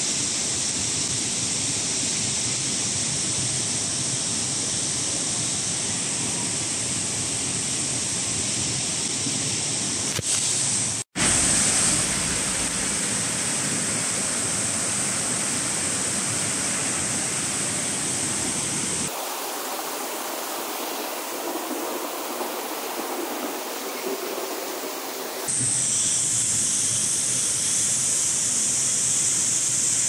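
Steady rushing of a waterfall and the fast, shallow stream below it. It breaks off for a split second about eleven seconds in, and from about nineteen to twenty-five seconds it sounds thinner, with no low rumble.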